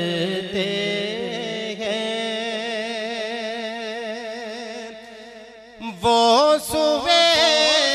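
A man singing a naat, an Urdu devotional poem, holding long notes with a wavering vibrato. The voice fades low about five seconds in, then a louder, higher phrase begins about a second later.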